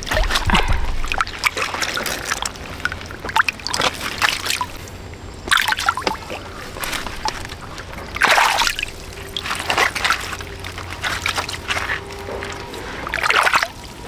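Water splashing and sloshing in repeated bursts a few seconds apart, with softer trickling between them.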